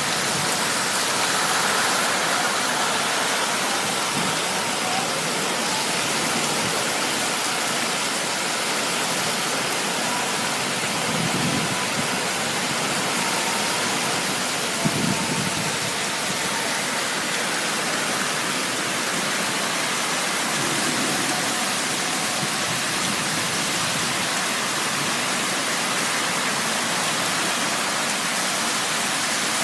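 A storm's steady rushing noise, with a few brief low rumbles of wind buffeting the microphone about 11, 15 and 21 seconds in.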